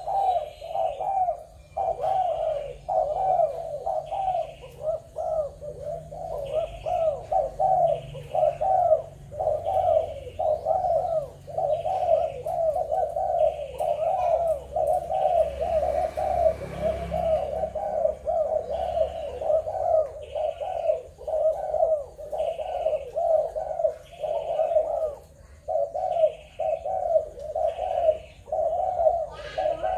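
Spotted doves cooing over and over, one phrase following another almost without a break, the calls of more than one bird overlapping.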